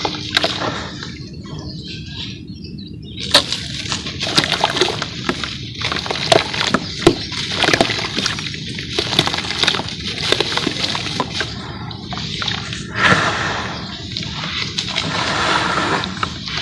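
Wet charcoal paste worked in a bowl: irregular squelching and sloshing, with many small crackling clicks and short pauses between strokes.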